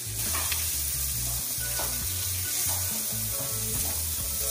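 Seasoned mahi strips sizzling steadily in hot olive oil in a nonstick frying pan, with a spatula moving the pieces near the end.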